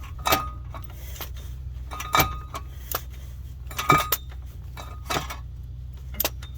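Metal hand tools clinking and clanking, a wrench and socket knocking against metal about five times, each with a short ring, over a steady low hum.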